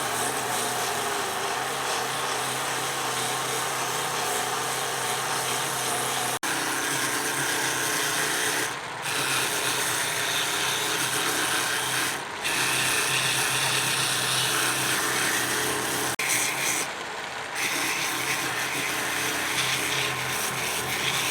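A handheld power tool buffing tire rubber, running steadily with a harsh rasping noise and easing off briefly three times.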